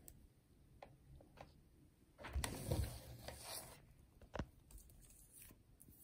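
Faint handling noise: a few light clicks, then rubbing and rustling for about a second and a half near the middle, and one sharper click about four seconds in.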